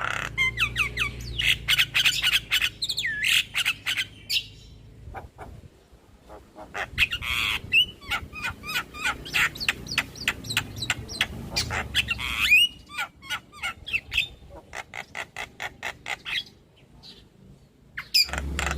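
Javan myna (jalak kebo) calling: fast runs of sharp clicking chatter mixed with squawks and short whistles that sweep up and down, broken by two pauses of a second or two.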